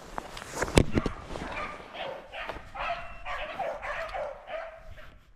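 Beagles baying on a rabbit's trail: a run of repeated hound cries, two or three a second, the sound of the pack running a rabbit. A sharp knock comes about a second in.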